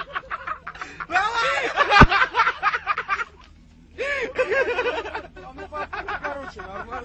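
Men laughing and snickering in short repeated bursts, with one sharp click about two seconds in.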